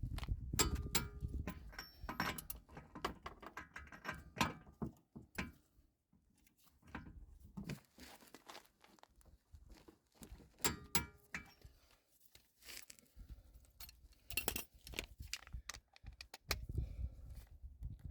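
Metal tools and parts clinking and knocking in irregular handling, with scattered sharp clicks, some ringing briefly, and a few dull thuds, while a car's front wheel bearing and hub are being worked on.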